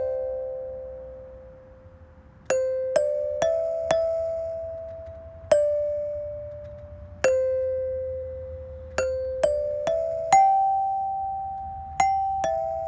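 Background music: a slow chime melody of single struck notes, each ringing out and fading, in short runs of three or four notes that step down or up, with pauses between the runs.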